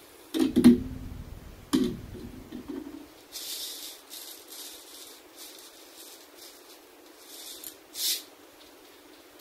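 A metal frying pan is knocked and shifted on an electric burner, a couple of solid clunks. Then comes several seconds of dry rattling from popcorn kernels being handled, ending with a brief louder rattle as a few kernels drop into the nonstick pan about eight seconds in.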